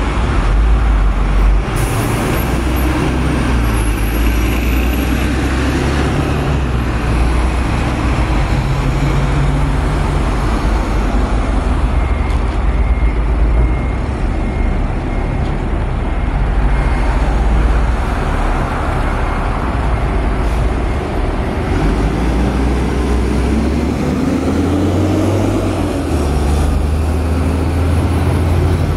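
Street traffic: cars and a truck passing on a multi-lane road over a constant low engine rumble, with engine notes rising and falling in pitch.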